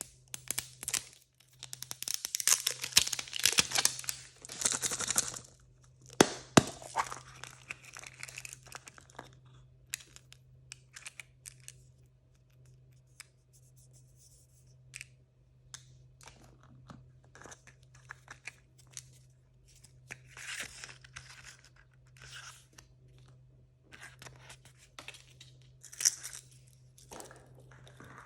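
Plastic blind-bag packaging being torn open and crinkled by hand, a dense spell of tearing and crackling in the first few seconds with a sharp snap just after, then scattered rustles, clicks and handling of the wrapper and its contents.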